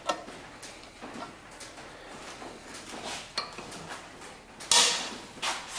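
Light metal clicks and scrapes of a screwdriver prying at a snap ring in a drive shaft U-joint yoke, with a louder scrape about five seconds in. The attempt does not free the ring.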